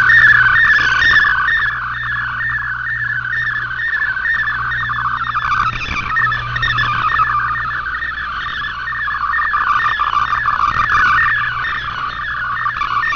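Shortwave radio receiving a digital-mode data transmission: a continuous warble of rapidly stepping tones packed between about 1 and 2 kHz, multi-tone FSK data carrying text or images, with a steady low hum underneath.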